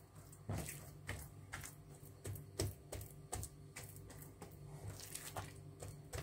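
Hands pressing and stretching out oiled, poppy-seed-spread dough in a tray: a run of soft, irregular taps and squishes, about two a second, over a faint steady hum.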